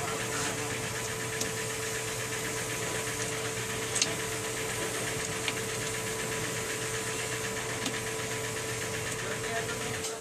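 A steady hum with a constant mid-pitched tone, broken by a few short clicks about four, five and a half and eight seconds in.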